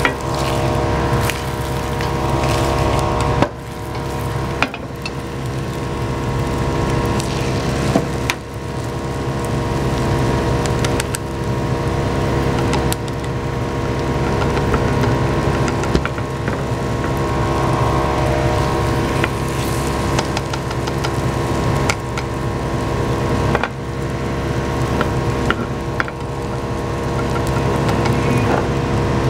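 Kitchen exhaust fan running loud, a steady rushing drone with a hum, over egg sizzling in a square tamagoyaki pan. A few sharp knocks of chopsticks against the pan.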